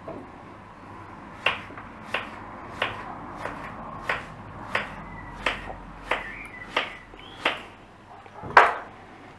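A kitchen knife slicing a courgette into rounds on a cutting board: about ten even cuts, one roughly every two-thirds of a second, each a light knock of the blade on the board, then one louder knock near the end.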